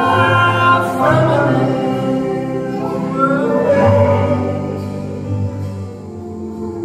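Slow, ballad-like music: a man singing out loudly over grand piano, with other voices joining in like a choir. It is played over speakers in a large room.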